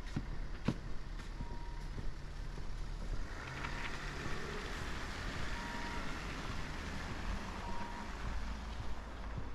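City street traffic: a steady engine rumble, with the hiss of a vehicle passing swelling about three seconds in. A short high beep repeats roughly every two seconds.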